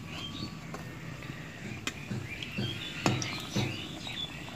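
Thekua dough frying in hot oil in a wok, a low sizzle under many short bird chirps, with a couple of sharp knocks about three seconds in.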